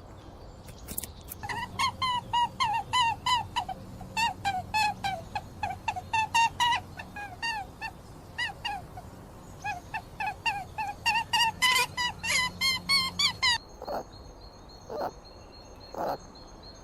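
An animal giving a rapid series of short, high-pitched calls, about three a second, which stop about thirteen seconds in.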